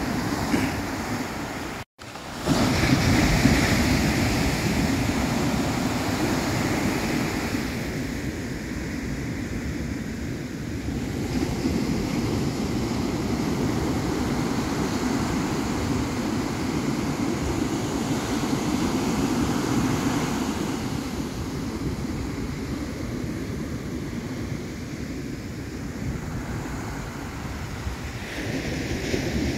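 Ocean surf breaking and washing up a sandy beach, a steady rush that swells and eases over several seconds, with wind buffeting the microphone. The sound cuts out for an instant about two seconds in.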